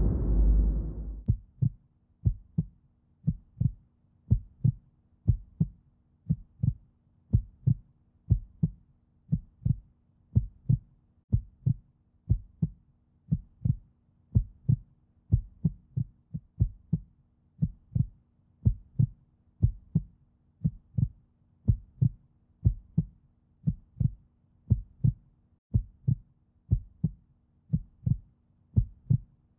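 A loud rushing noise stops about a second in. After that comes a steady heartbeat sound effect: low, even thumps about two a second, with a faint steady hum beneath.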